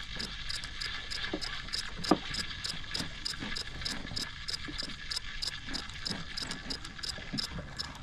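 A fishing reel being cranked to bring in a hooked horse mackerel, its mechanism ticking evenly about four times a second. Scattered soft knocks sound underneath.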